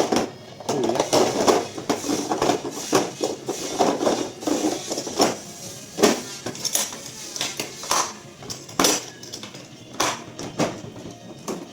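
Metal hand tools clinking and knocking together as they are handled, in irregular knocks with no steady rhythm.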